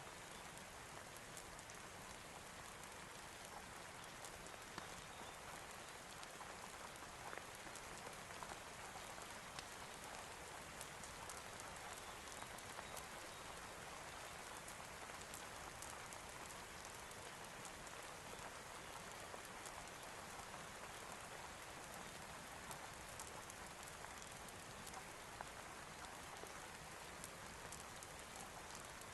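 Faint, steady rain: an even hiss dense with the small ticks of falling drops.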